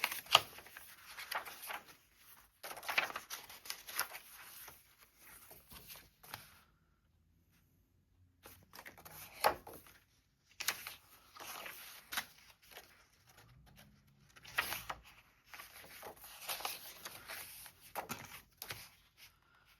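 Paper and cardstock being handled: journal pages and pockets rustling, sliding and crinkling in irregular bursts, with a few sharper taps and short pauses.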